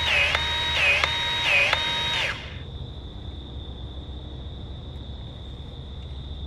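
An electronic warbling alarm tone, dipping in pitch and coming back over and over, cuts off about two seconds in. After it, a steady thin high insect drone remains with a low hum underneath.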